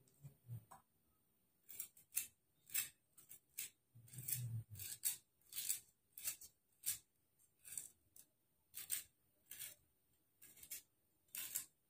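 Dried tamarind pods being cracked and peeled apart by hand: a run of short, faint crackles, about one every half second to second, with a soft low bump about four seconds in.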